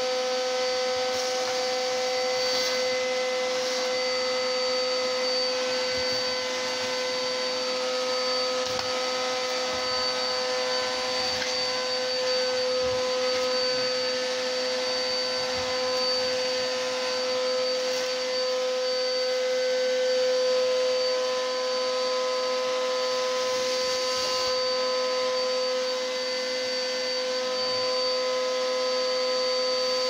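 Industrial vacuum cleaner running steadily with a high whine while it sucks up shredded paper through its hose, with a few faint ticks.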